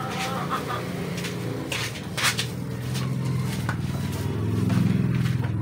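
Plastic-gloved hands threading marinated pork onto a bamboo skewer: a few short crinkles and light knocks. Under them runs a steady low hum that swells toward the end.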